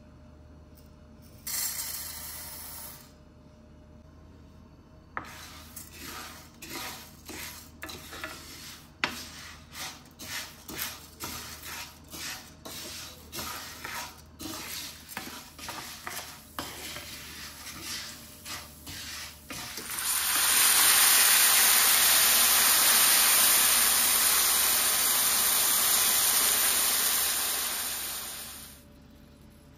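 Dry orzo poured from a glass into a nonstick frying pan of olive oil, a short rattling rush. Then the orzo is stirred in the hot oil with a wooden spoon in quick repeated scraping strokes. About 20 seconds in, hot water poured into the hot pan sets off a loud steady sizzling hiss that lasts about eight seconds and then dies away.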